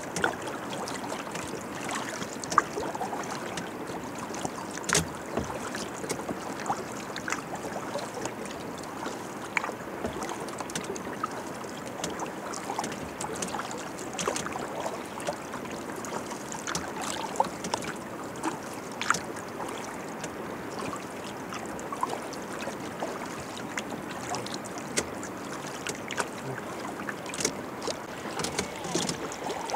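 Kayak paddling on calm water: small irregular splashes and drips from the paddle over a steady wash of water.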